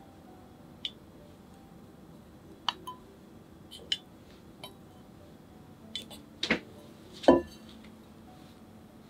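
Wooden chopsticks clicking and tapping against a ceramic dobin teapot as shrimp and ginkgo nuts are set inside it: scattered light clicks, with two louder knocks about two-thirds of the way through.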